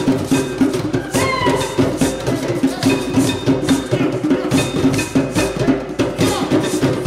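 A djembe drum ensemble plays a fast, driving rhythm together, with small hand percussion clicking and ringing on top.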